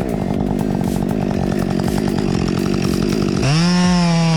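Chainsaw engine running with a rough, uneven buzz, then revved up about three seconds in to a steady, high-pitched full-throttle scream.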